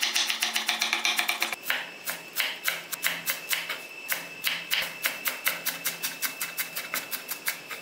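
Chef's knife chopping fast on a wooden cutting board, first through sliced red onion in a quick dense patter, then, after about a second and a half, through coriander leaves in even taps about five a second.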